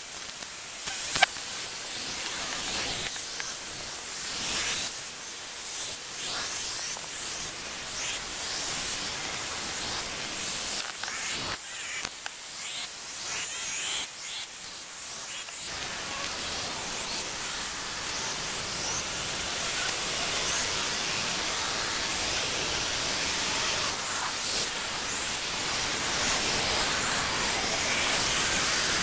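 Steady hiss-like outdoor sound with many short ticks and flutters, woodland ambience at a sap tree crowded with insects, sped up eight times. About halfway through it turns fuller and a little louder.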